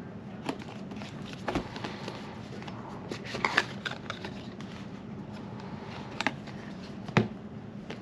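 A DJI Mic's paperboard retail box being handled and opened by hand: scattered taps, clicks and paper rustles, with a steady low hum underneath.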